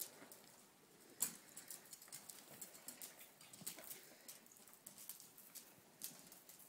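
Faint, irregular footfalls and small clicks of a four-year-old colt being ridden at a walk on arena dirt, with one sharper click about a second in.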